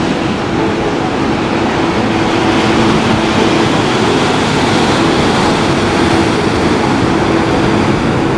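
Loud, steady rush of surf breaking against sea cliffs, mixed with wind on the microphone, with a steady low hum underneath.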